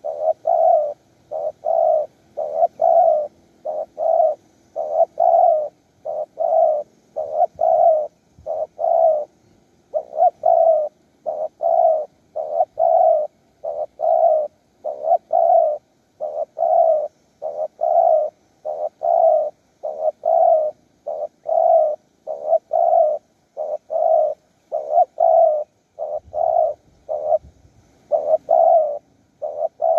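Spotted doves cooing: a long, steady run of short coos, about one to two a second, with only brief pauses.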